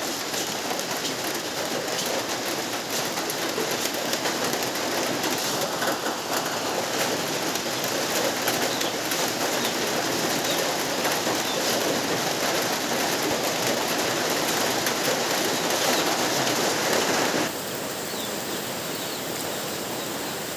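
Rain falling steadily as a dense, even hiss, becoming somewhat quieter about three seconds before the end.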